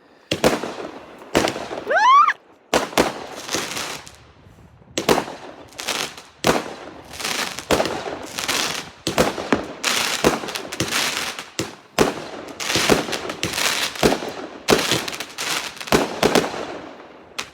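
Consumer fireworks going off in rapid succession: a dense run of sharp bangs and crackling, with a rising whistle about two seconds in, stopping just before the end.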